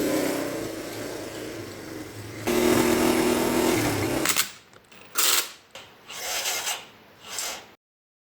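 Yamaha Timberwolf ATV being started: a steady mechanical running sound for about four seconds, then four short rasping strokes, cut off suddenly near the end.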